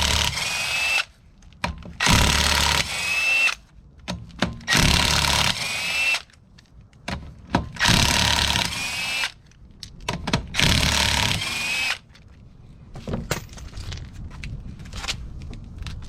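Impact wrench spinning off the front-wheel lug nuts: five loud bursts of a second or so, about every two and a half seconds, each ending in a rising whine as the nut runs free. Lighter clinks and handling follow near the end.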